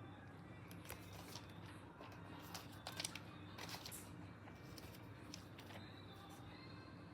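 Faint rustling and scattered clicks of a box and packaging being handled during an iPad unboxing, loudest about three seconds in, over a low steady hum.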